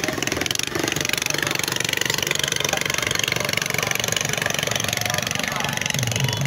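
Tractor engines running steadily at the competition ground.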